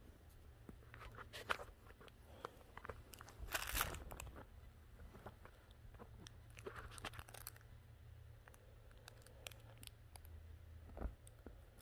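A French bulldog puppy scrabbling and nosing against a pillow and fabric couch cushions: scattered rustling and scratching, loudest a little before four seconds in, with a soft thump near the end.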